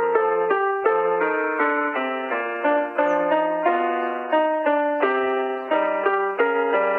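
Village disaster-prevention outdoor loudspeaker playing the noon chime: an electronic keyboard (piano-like) arrangement of an elementary school song. A steady melody of struck notes over chords and a bass line.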